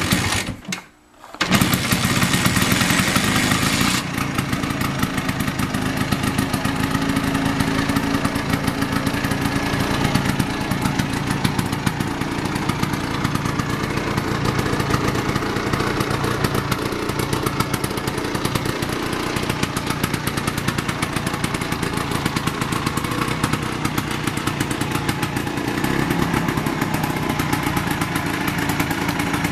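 1963 Vespa GL scooter's two-stroke single-cylinder engine catching about a second in, then running steadily.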